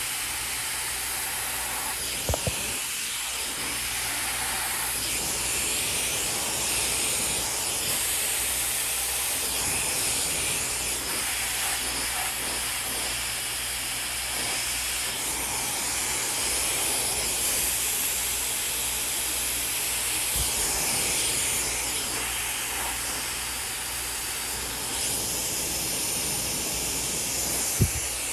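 Handheld hair dryer blowing steadily, a loud even rush of hot air through hair on a round brush, with a low hum under it. Two brief clicks break in, about two seconds in and near the end.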